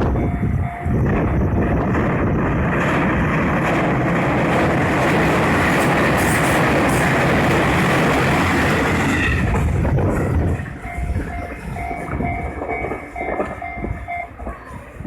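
Train running past close by over the level crossing with loud, steady wheel-and-rail noise that dies away about ten seconds in. The level-crossing warning bell then rings on in a repeating two-tone clang until it stops near the end, as the crossing clears.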